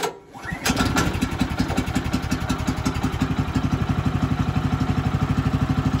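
Small gasoline engine of a Woodland Mills HM122 bandsaw mill starting up, catching under a second in, then idling steadily with an even firing beat. It is warming up at idle before the throttle is applied.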